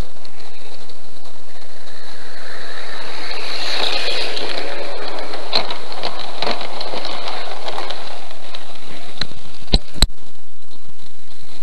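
Loud steady hiss from a small camera's microphone, with a model garden-railway train rolling past it close to the track. The sound of the train swells from about three seconds in and fades after about eight. A few sharp clicks come as the train passes, and two more near the end.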